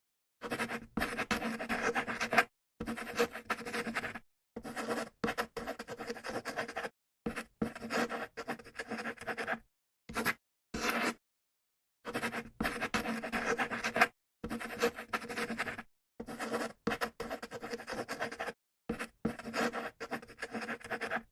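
Pen or pencil writing on paper: scratchy strokes in short runs that stop and start, with dead-silent gaps between them.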